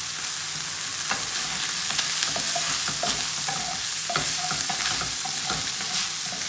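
Chicken thigh pieces sizzling in a hot frying pan, stirred with a wooden spatula that scrapes and clicks against the pan over the steady frying hiss.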